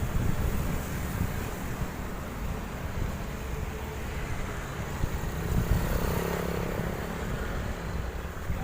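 Road traffic: the steady low rumble of passing motor vehicles' engines and tyres, with a faint short tone about six seconds in.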